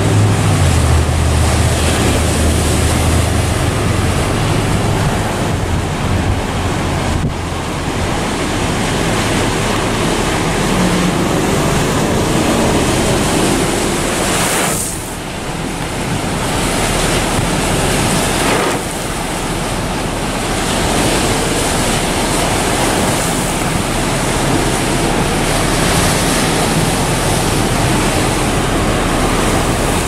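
Strong gusty wind buffeting the microphone over large waves breaking on a rocky lake shore, a loud continuous rush that dips briefly twice about halfway through. A low hum fades out in the first few seconds.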